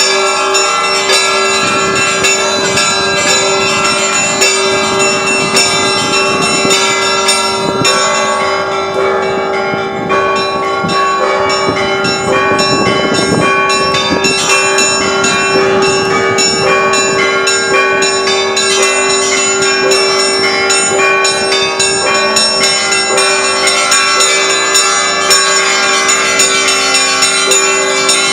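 Orthodox church bells of Moscow's Kazan Cathedral rung in a continuous peal: many bells struck in quick succession over a lower bell's steady hum.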